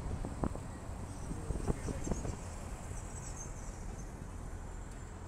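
Steady low rumble of a car driving slowly, picked up by a camera mounted outside on the roof, with a few knocks in the first two seconds.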